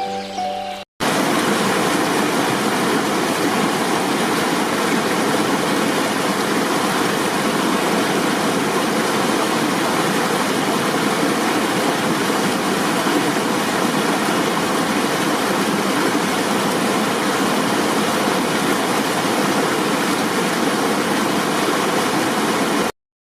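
Steady rush of flowing water, even and unchanging, starting abruptly about a second in and cutting off suddenly near the end.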